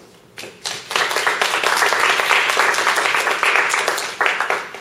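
Audience applauding: a few scattered claps, then steady applause from about a second in that thins out near the end.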